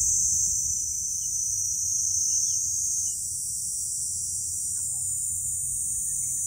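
Steady, high-pitched insect drone, such as a chorus of cicadas or crickets, over a low rumble of wind on the microphone. It dips slightly about halfway through.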